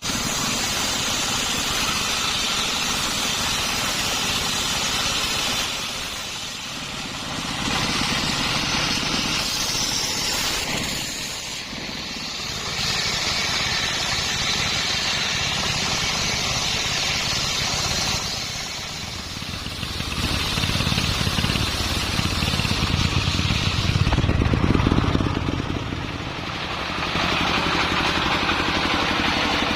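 Circular saw blade running and cutting hard coconut-palm wood, a dense steady noise that eases off briefly several times and grows heavier and deeper for a few seconds past the middle.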